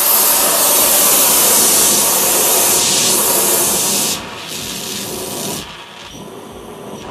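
Gas torch just lit, its flame hissing loudly and steadily. The hiss drops in level about four seconds in and again near six seconds.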